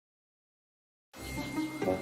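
Dead silence for about a second, then background music comes in with held notes.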